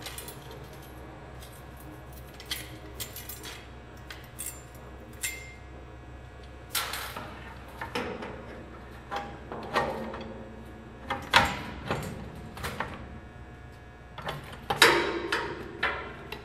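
Metal Leverlock clamp ring being fitted around the rim of a metal IBC drum cover: irregular metallic clinks, jingles and knocks. The loudest knocks come about eleven seconds in and again near the end.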